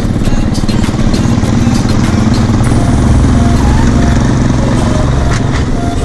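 Motorcycle engine running steadily at low speed on a rough dirt road, with occasional clicks and rattles from the bike over the loose surface.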